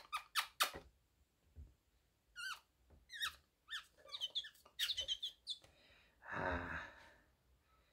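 A caged linnet gives a series of short chirping calls. A few quick clicks come just before the calls, and a brief breathy burst follows near the end.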